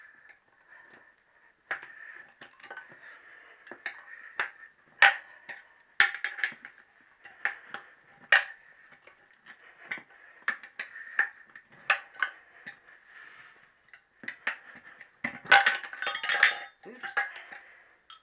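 Steel tyre levers clicking and clinking against the chromed spoked rim of a motorcycle wheel as the tyre bead is levered off by hand: scattered sharp knocks, with a busier run of ringing metal clinks about three-quarters of the way through.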